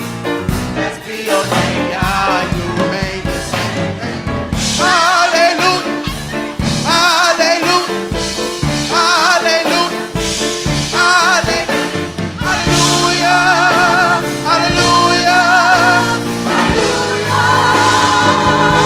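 Gospel choir singing worship music with instrumental backing, voices holding long notes with vibrato.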